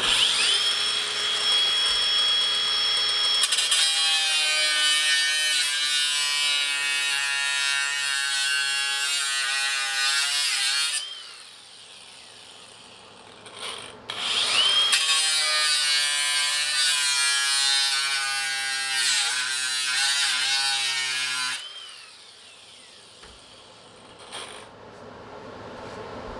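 Cordless electric ratchet running in two long spells, about eleven seconds and then about six seconds after a short pause, its motor and gearing giving a steady whine while it spins out fasteners on the intercooler piping.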